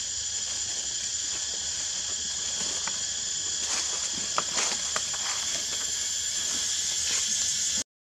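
Steady chorus of insects, high and continuous, with a few faint clicks and rustles midway. The sound cuts out suddenly just before the end.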